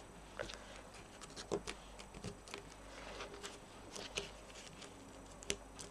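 Faint, scattered rustles and light taps of paper and card as fingers press and adjust paper ribbon bows on a card.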